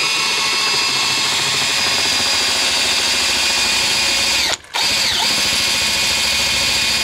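DeWalt cordless drill with a paddle mixer bit running steadily with a high motor whine, churning a slurry of food waste, manure and water. The drill stops briefly about four and a half seconds in, then spins back up.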